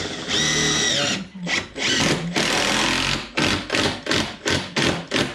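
Cordless drill driving screws into the stair timber, run in trigger bursts: a short run with a steady whine, a longer run of about a second, then a string of quick bursts, about two or three a second, near the end.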